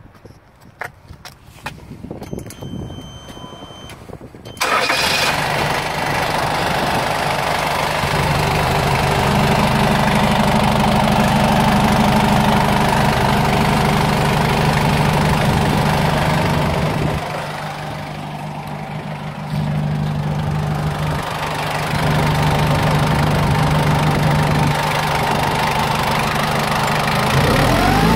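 Toyota 1DZ-II four-cylinder diesel of a Toyota 7FDF30 forklift starting suddenly about four and a half seconds in, then idling steadily. It turns briefly quieter a little past the middle and begins to rev up near the end.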